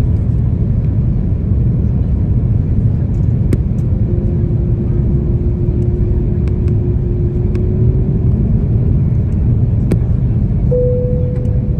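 Steady low rumble of jet airliner cabin noise, engines and airflow, during the descent to land. A faint steady hum comes in about four seconds in and fades near eight seconds, a slightly higher one starts near the end, and there are a few faint clicks.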